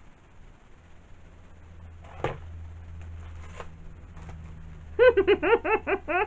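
A woman laughing in a quick run of high "ha-ha-ha" notes near the end, after a single soft tap about two seconds in, over a low steady hum.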